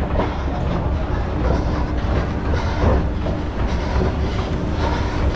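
Running footsteps with a steady rumbling movement noise, picked up by a head-mounted camera on a runner moving at pace.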